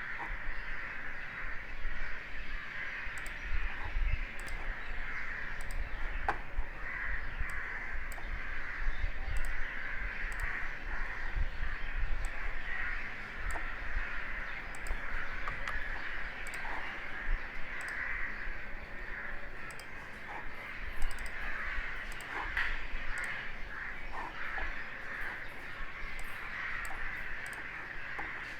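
Birds cawing in a continuous, uneven chorus, with scattered sharp clicks over it.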